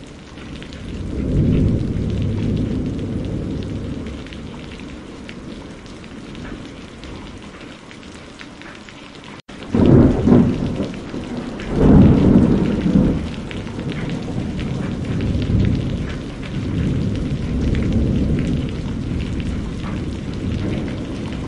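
Steady rain with rolling thunder. A rumble swells about a second in and fades. After a brief dropout near the middle, heavier thunder rumbles twice in quick succession, then rolls on in long swells under the rain.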